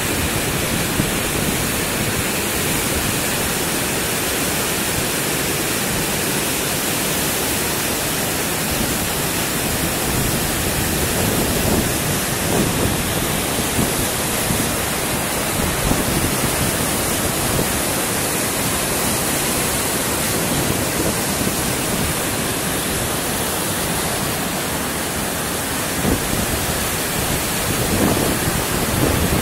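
Water pouring over a river weir's concrete spillway, a steady rushing noise with a few brief low rumbles.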